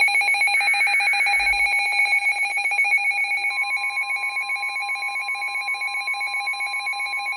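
A weather-alert radio receiver sounding its alarm for an incoming warning: a fast, trilling electronic tone, with a short burst of broadcast data tones beneath it about a second in. About three and a half seconds in, the steady 1050 Hz NOAA Weather Radio warning tone joins it.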